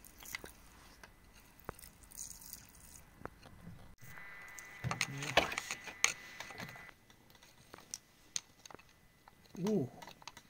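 A metal digging tool tapping and scraping against stones and gritty wet mud, with scattered sharp clicks. There are short bits of voice about five seconds in and near the end.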